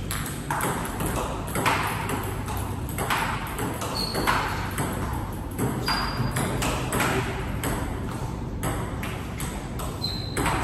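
Table tennis rally: the plastic ball clicking off the bats and the table at about two hits a second, one player blocking topspin with a Donic Alligator Anti 1.0 mm frictionless anti-spin rubber.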